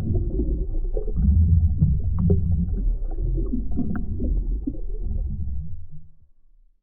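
Underwater ambience sound effect: a muffled low rumble with scattered small pops, fading away to silence near the end.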